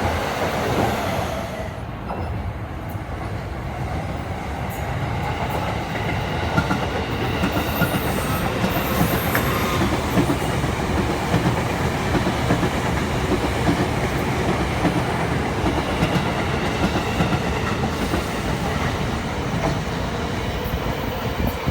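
Japanese passenger train running on the rails: a steady loud rumble with scattered clicks from the wheels.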